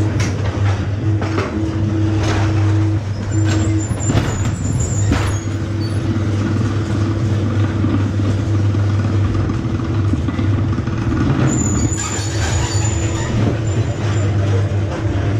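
Ghost-train ride car running along its track in the dark: a steady low hum with scattered knocks and clatter, and a thin high whine twice.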